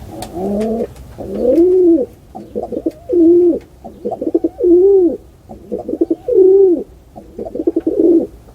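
Pigeon cooing: a run of about six coo phrases, each a quick stutter of short notes leading into a longer coo that rises and then falls in pitch.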